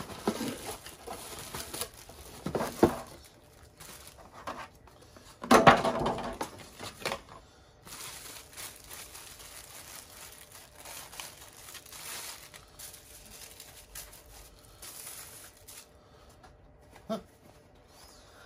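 Plastic packaging being handled: clear plastic wrap crinkling and rustling, with scattered clicks and knocks. The loudest crackling comes about five to seven seconds in, followed by a softer, steadier rustle.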